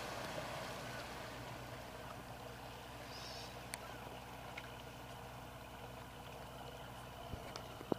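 Outboard motor of a small runabout running at low speed as the boat comes off the plane, a steady low hum over water wash that gets quieter over the first couple of seconds.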